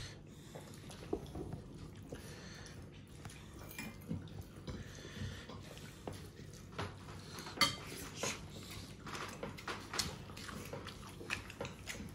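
Plates and cutlery clinking and scraping at a shared meal of rice and curry: scattered light clinks, coming thicker in the second half.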